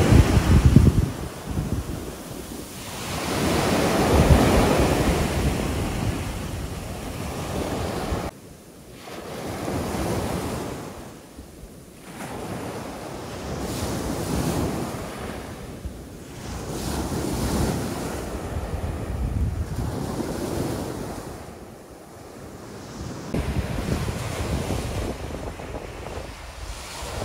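Sea waves washing onto a sandy beach, the surf swelling and ebbing every few seconds, with wind buffeting the microphone.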